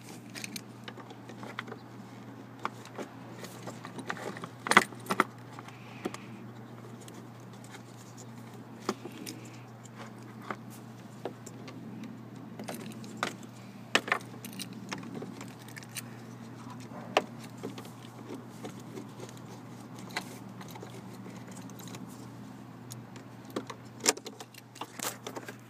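Scattered plastic and metal clicks, taps and knocks from working a tight EFI relay loose from a truck's under-hood fuse and relay box, with a few louder knocks among them. A steady low hum runs underneath.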